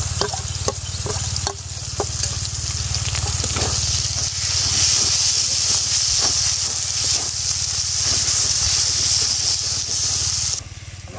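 Freshly ground wet spice paste sizzling as it fries in hot oil in a wok, stirred with a metal ladle that knocks and scrapes against the pan. The sizzling grows louder about four seconds in and cuts off suddenly near the end, over a steady low hum.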